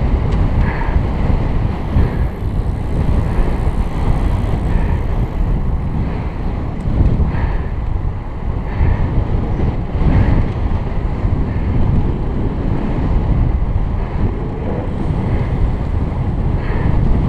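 Steady wind noise buffeting a helmet-mounted camera's microphone on a road bicycle moving at race speed.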